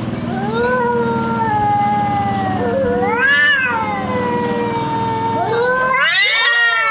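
Cats yowling at each other in a fight standoff: long drawn-out wails that slide up and down in pitch over a low steady growl, swelling about three seconds in and climbing to a higher wail near the end.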